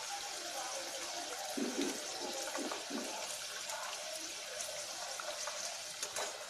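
Rice-flour-coated bitter gourd rings deep-frying in hot oil in a steel pan: a steady sizzle as the golden, nearly done pieces are turned with a perforated metal skimmer. A couple of sharp clicks come near the end.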